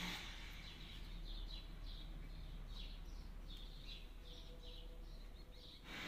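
Lutino cockatiel chirping, a quick series of short high chirps, about three a second, over a steady low hum.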